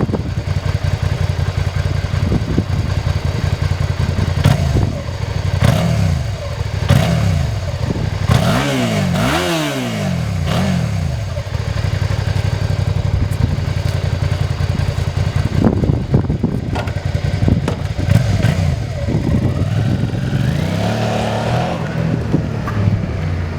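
Suzuki SV650S V-twin motorcycle engine idling steadily, blipped several times so the revs rise and fall quickly, with a run of blips about a third of the way in and more near the end.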